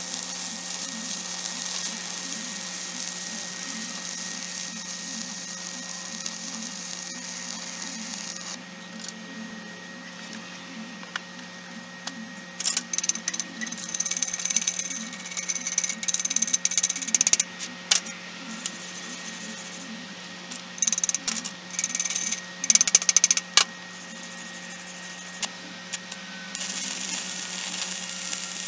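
Stick-welding arc crackling and hissing steadily as a CHEM-WELD 7100 electrode is run on rusty steel, stopping after about eight seconds. A few seconds later come bursts of sharp metallic tapping from a chipping hammer knocking slag off the weld, and the arc strikes up again near the end.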